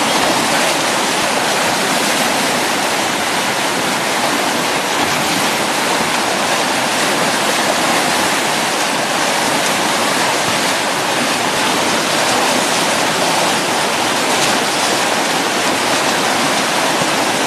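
Whitewater river rapids rushing steadily and loudly close by.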